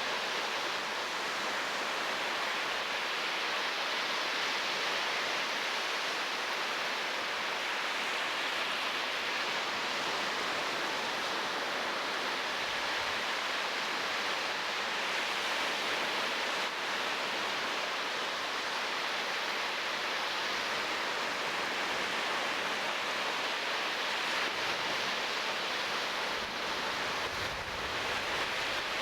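Steady, even rushing of surf washing on a shore, with no bird calls standing out.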